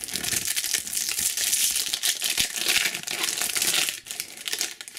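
Foil wrapper of a Panini Adrenalyn XL booster pack crinkling and tearing as it is ripped open by hand, easing off about four seconds in.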